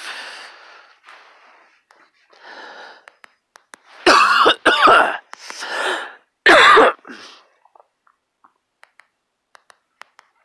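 A man coughing and clearing his throat: breathy rasps at first, then a run of loud, harsh coughs about four seconds in and one more a couple of seconds later.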